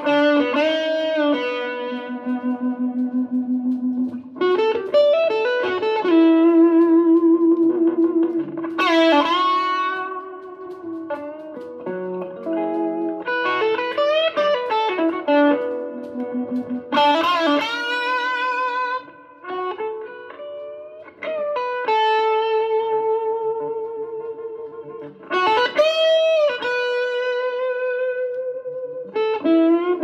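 Les Paul-style electric guitar played through an amp: a slow lead melody of long sustained notes with wide vibrato and string bends, several bent notes rising in pitch.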